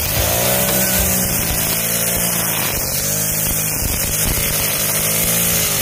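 Engine-driven brush cutter running at high speed as it cuts through tall grass. Its engine pitch sags and recovers about every second and a half as the blade sweeps through the grass.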